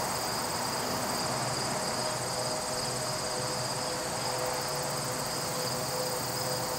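Steady high-pitched trilling of late-summer insects, unbroken and even.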